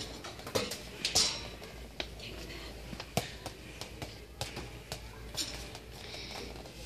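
Hockey stick blade tapping and slapping on a hard floor and on a small block used as a puck: an irregular string of sharp taps, loudest in the first second or so.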